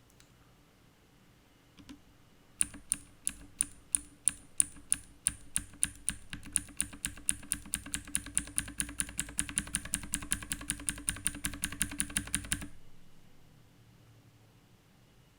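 Keystrokes on a K550 mechanical keyboard with clicky blue switches lubed with Krytox 205g0, each press a sharp click. They start after a short quiet at about three a second, speed up into steady fast typing, and stop abruptly near the end.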